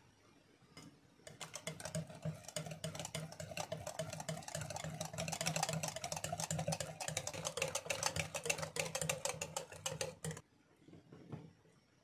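A whisk beating flaxseed batter in a glass bowl: a fast, steady run of clicks against the glass. It starts about a second in and stops suddenly near the end, followed by a couple of faint knocks.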